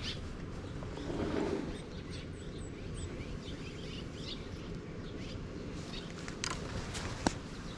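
Birds chirping faintly over steady outdoor background noise, with two sharp clicks near the end.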